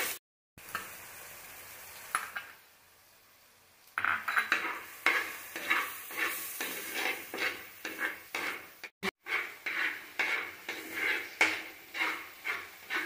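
Metal spoon stirring and scraping frying onions and tomatoes around a clay pot, with a light sizzle. From about four seconds in, the scrapes come in a steady rhythm of roughly two strokes a second.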